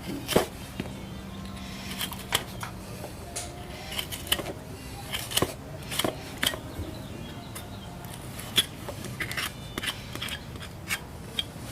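Farrier's hand tools working a horse's hoof: a string of irregular sharp clicks and snips, like nippers cutting and metal tools knocking on the hoof.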